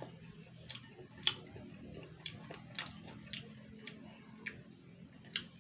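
A person chewing crunchy rujak close to the microphone, with sharp crunches about twice a second over a faint steady low hum.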